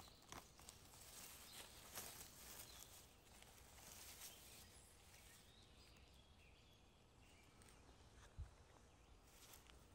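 Faint crackling and rustling of dry leaves and grass as a hand reaches in and picks a porcini mushroom from the forest floor, with a single soft thump near the end.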